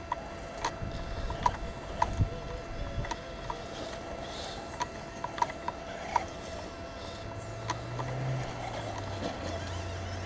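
Radio-controlled scale crawler trucks working over rough ground. A faint steady electric whine runs throughout, broken by irregular sharp clicks and knocks, and a low motor hum comes in about seven seconds in.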